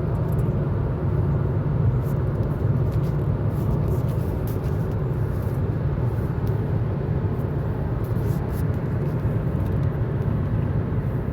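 Steady road and tyre noise inside a car's cabin at highway speed, about 85 mph.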